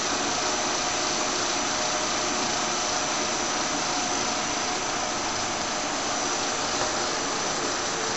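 Monarch 10EE lathe running steadily under power, with the carriage on power feed. There is an even mechanical hum and a constant high-pitched whine.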